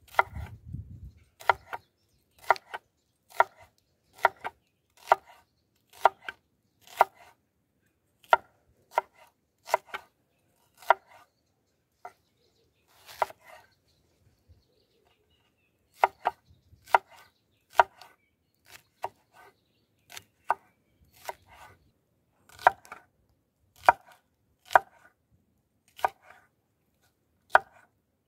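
Broad cleaver-style knife slicing through a peeled onion and knocking on a wooden cutting board, one sharp stroke about every second, with a pause of a few seconds midway.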